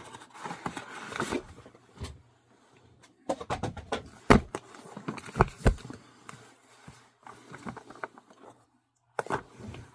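Handling noise: scattered clicks, knocks and rustling as a comic book is taken out and handled, with a cluster of sharper knocks a few seconds in.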